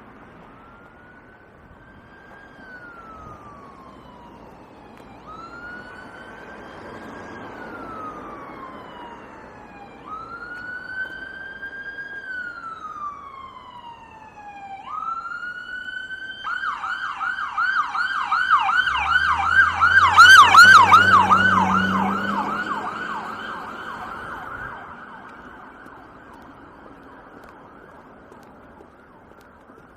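Emergency vehicle siren approaching and passing. A slow rising-and-falling wail repeats about every four to five seconds, then switches about halfway through to a fast yelp of about four cycles a second. The yelp is loudest as the vehicle goes by, with its engine rumbling underneath, and then fades.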